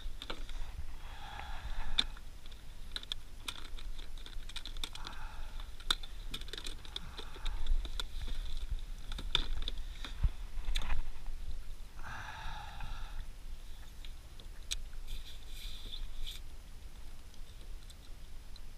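Scattered small clicks and knocks of hands handling a plastic tackle box, charger cables and a camera, over a low steady rumble.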